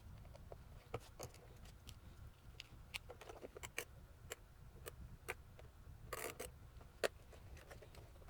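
Faint, irregular clicks and taps of small hard parts being handled, with a short scrape about six seconds in.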